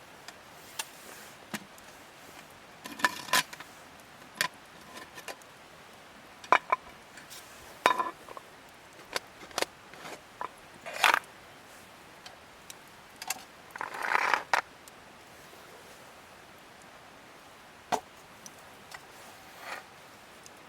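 A metal spoon clinking and scraping in a metal camp dish while eating curry: scattered sharp clinks, some with a short ring, and a longer scrape about two-thirds of the way through.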